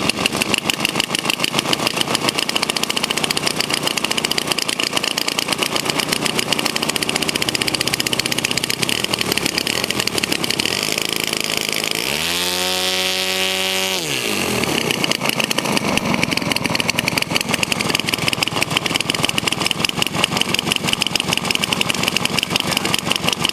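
Engine of a large radio-controlled aerobatic plane running on the ground with its propeller spinning, a fast steady idle. About halfway through it revs up briefly for a couple of seconds and drops back to idle.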